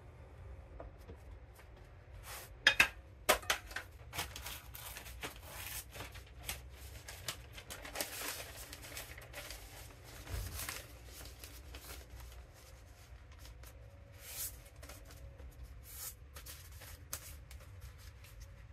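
Paper crinkling and tearing as a newspaper advertising flyer is folded and handled, an irregular run of crackles with a few sharp, louder cracks about three seconds in.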